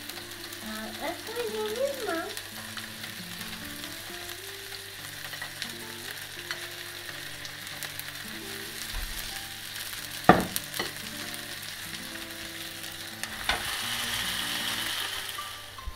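Chicken pieces sizzling on a hot electric contact grill while barbecue-sauce marinade is brushed onto them, with a single sharp knock about two-thirds of the way through. Near the end the sizzling grows louder and hissier with the grill's lid closed down on the meat.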